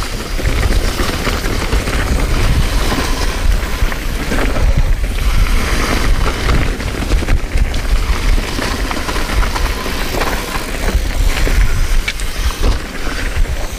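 Mountain bike riding fast down a dirt trail: wind buffeting the chest-mounted camera's microphone, a steady low rumble, over tyre noise on the dirt and a few short rattles from the bike.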